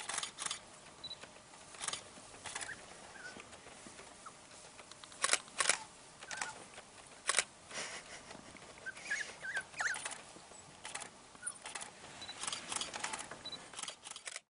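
Scattered camera shutter clicks, some in quick pairs, over a quiet background, with a few short high squeaks from African wild dog pups feeding on regurgitated meat.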